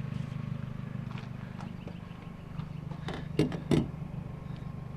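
Two sharp knocks, about a third of a second apart, as pieces of cookware are handled, over a steady low hum of an idling vehicle engine.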